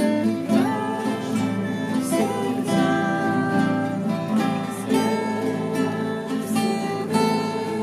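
Acoustic guitar strummed continuously, playing chords.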